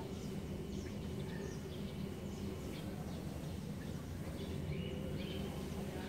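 Outdoor ambience: a steady low hum, with short, faint bird chirps scattered throughout.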